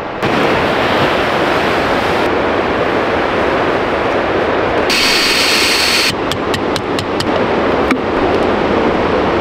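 Steady rush of a river running over rapids. About halfway there is a brief louder hiss, followed by a quick run of light clicks.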